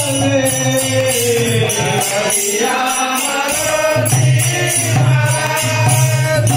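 Bengali devotional kirtan: men chanting a Radha-Krishna bhajan in long, gliding sung lines, over a khol drum and brass hand cymbals (kartals). The drum drops out for about a second midway, then comes back while the cymbals keep time.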